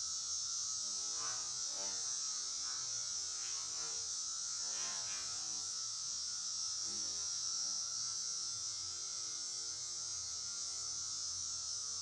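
Steady buzzing hum of a mass of Italian honeybees on an open brood frame, under a constant high hiss.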